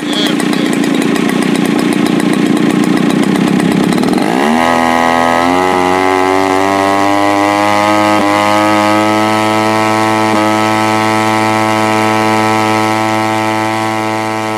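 Yeager Sachs 3.7 (61cc) two-stroke engine, a converted Sachs Dolmar chainsaw engine, running with its propeller at high throttle. About four seconds in it is throttled back with a steep drop in pitch and settles into a steady idle with a few small pitch steps. The owner blames its uneven running on a sloppy carburettor throttle cable.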